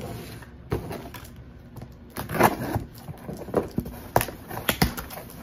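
Cardboard shipping box being opened by hand: scraping and crackling of the cardboard and packing tape, with a string of sharp knocks and clicks, busier from about two seconds in.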